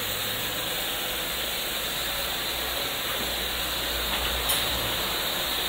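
Steady hiss of running water with a low hum underneath, from the water station's filtration equipment.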